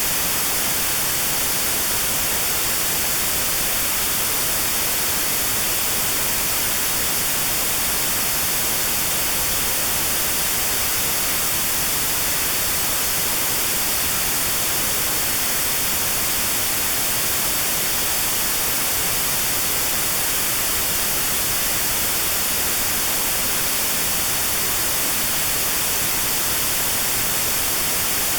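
Steady white noise with a narrow band around 4 kHz cut out: notched sound therapy for tinnitus at that pitch.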